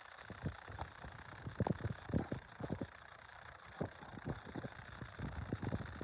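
Footsteps through snow: a faint string of soft, irregular crunches and thumps, roughly one every half second.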